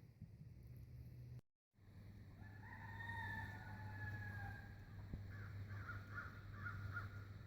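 A female emu drumming: a low, steady rumble. Another bird calls over it, with two drawn-out falling calls a couple of seconds in, then a quick series of short notes. The sound cuts out completely for a moment about a second and a half in.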